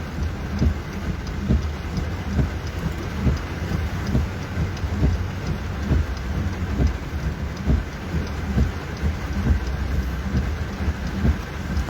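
Rain falling steadily, with many small scattered drop hits over a heavy, uneven low rumble.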